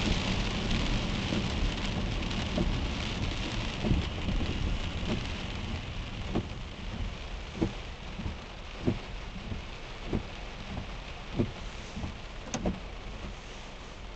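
Heavy rain and tyre spray heard from inside a car, a steady hiss that fades as the car slows into stopped traffic. From about halfway through, a soft knock repeats about every second and a quarter, the windshield wipers reaching the end of each sweep.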